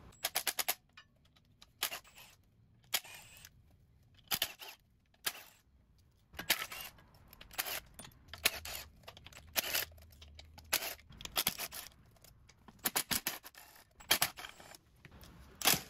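A hand socket ratchet clicking in short, irregular bursts: a quick run of clicks at the start, then a burst every second or so, as bolts are turned.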